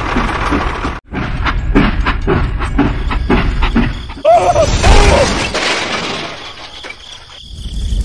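A toy train clattering along its plastic track with rapid clicks, then a loud crash about four seconds in that fades away over the next few seconds.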